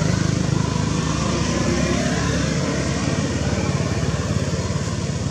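A small engine running steadily, with a fast, even low rumble.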